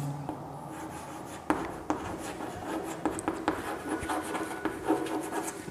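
Chalk writing on a chalkboard: a steady scratching of strokes, with several sharp taps as the letters are formed.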